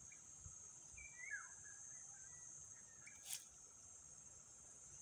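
Faint, steady high-pitched chorus of field insects such as crickets, with a bird's short chirping call about a second in and a single sharp click a little after three seconds.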